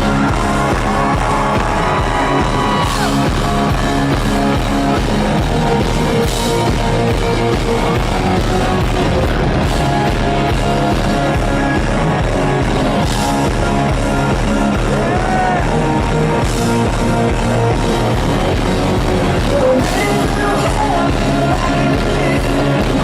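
Rock band playing live at full volume, with singing over the band.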